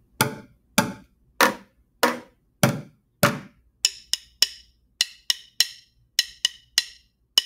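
Drumsticks playing a bucket drum in a steady beat, alternating hits on the bucket's sides and head. About three and a half seconds in, the sticks switch to clicking against each other in quick groups of three, sharper and brighter than the bucket hits.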